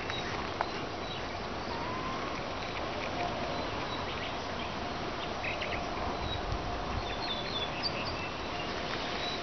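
Steady outdoor background hiss with faint, high bird chirps now and then.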